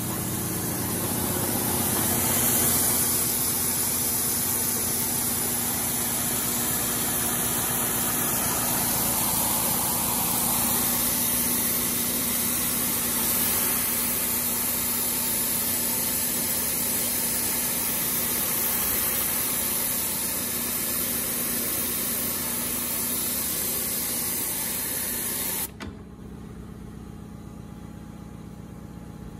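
Ackley Machine Corp tablet printer running: a steady machine hum with a hiss over it. About 26 seconds in, the hiss and much of the noise cut off suddenly, leaving a quieter hum.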